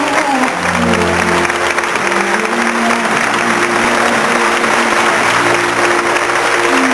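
Audience applause swelling up about half a second in and continuing, over instrumental music with slow, held notes.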